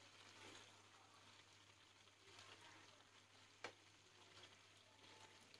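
Near silence: a faint sizzle from beef cooking down in the pan, with one sharp click about three and a half seconds in over a low steady hum.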